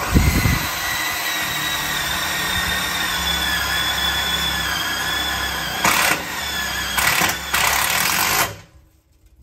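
Cordless drill driving a screw through a gate hinge into an aluminium gate stile. Its motor whines steadily for about eight and a half seconds, turns louder and harsher in three short spells near the end, then stops.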